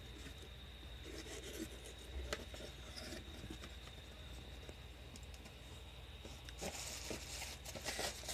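Hands handling a cardboard box and its wrapping: faint scraping, clicks and crinkling, with louder rustling near the end as the wrapping inside is moved.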